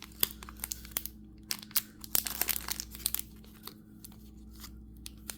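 Plastic blind-bag packaging crinkling and rustling as it is handled and opened: a quick run of short crackles for about three seconds, then only a few faint ones.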